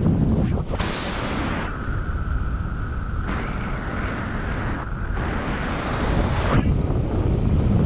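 Wind rushing over the camera microphone of a paraglider in flight, a loud, heavy low rumble. Through the middle a steady high-pitched tone sounds over it for about five seconds and then stops.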